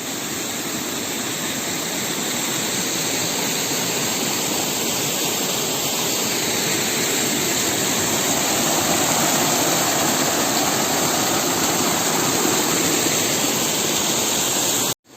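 Waterfall rushing: a steady, dense noise of falling water that grows slightly louder through the clip.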